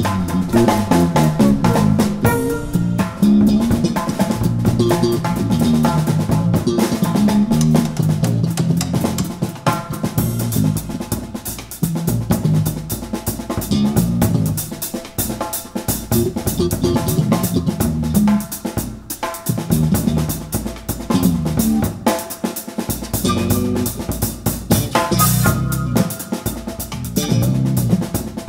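Small jazz-funk band playing live, the drum kit to the fore with an electric bass line moving underneath.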